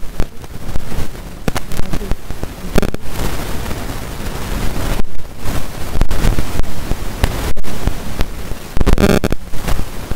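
Prawns in masala gravy sizzling and spattering in a frying pan, with a spoon scraping and knocking against the pan as it is stirred. The crackling is dense and loud, with many sharp clicks and a harder burst of scraping near the end.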